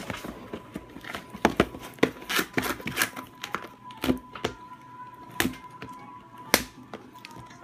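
Cardboard product box handled and set down on a wooden desk: an irregular run of sharp taps, knocks and rustles. Faint organ music plays from a laptop underneath.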